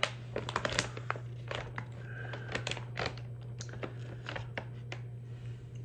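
Plastic snack bag being handled and crinkled: a rapid, irregular run of sharp crackles and clicks that thins out near the end, over a steady low hum.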